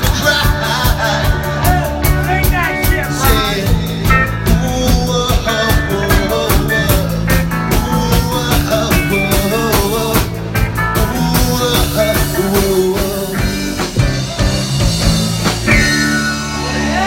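Live rock band playing an instrumental passage after the last chorus: a steady drum beat with bass and guitar. Near the end the drum hits thin out over a held chord.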